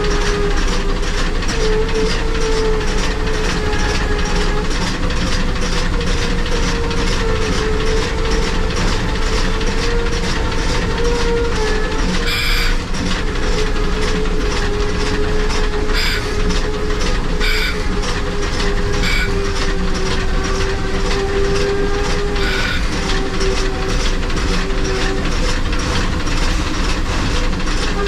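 Shay geared steam locomotive running, heard from the cab: rapid, even exhaust chuffs with a steady wavering tone underneath. A few short, sharp clanks or squeals come in the second half.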